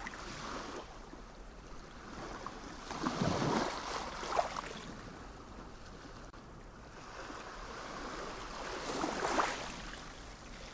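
Sea waves washing in, a steady rush of water that swells twice: about three seconds in and again near the end.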